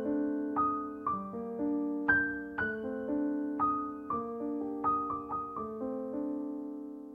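Slow, gentle solo piano music: single notes and chords, each struck and left to ring and fade, about two a second, thinning out and fading near the end.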